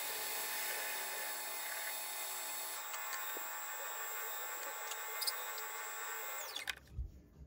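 Metal lathe running steadily with a constant whine, then switched off about six and a half seconds in, its pitch falling as it spins down.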